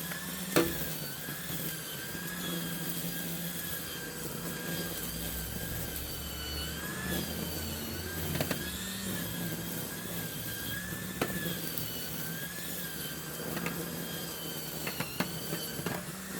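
String trimmer (weed eater) running at high speed, its high whine wavering in pitch as it is worked. A few sharp ticks come through, mostly near the end.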